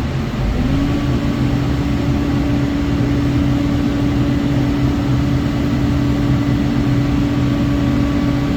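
Sany SY80U compact excavator running steadily with a Loftness Battle Ax mulcher attached, under a low engine rumble. A steady whine rises slightly in pitch about half a second in, then holds level.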